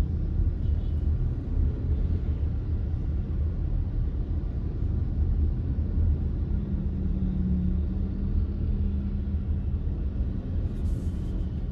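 Car driving along a road: a steady low rumble of engine and road noise, with a faint hum that grows a little louder for a couple of seconds midway.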